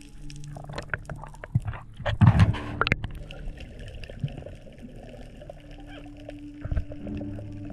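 Underwater water noise, with a burst of sloshing and bubbling about two to three seconds in, over soft background music with held notes.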